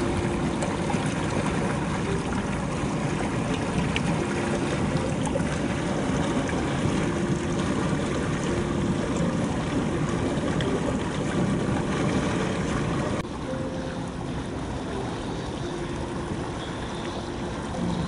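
River rapids rushing over rocks: a steady rush of white water with a low rumble. About thirteen seconds in it changes abruptly to a quieter, duller rush.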